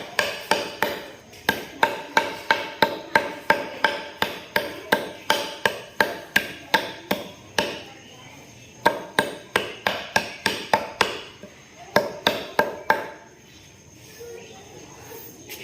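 Runs of sharp, evenly spaced striking knocks, about three a second, each with a short ringing tail. The runs stop and start twice before fading near the end.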